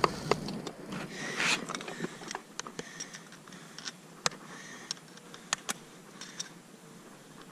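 Farrier's plier-type tool clicking and scraping against a mule's steel horseshoe and hoof wall as the shoe's nails are worked: scattered sharp metallic clicks and short scrapes, a cluster of the clearest about halfway through.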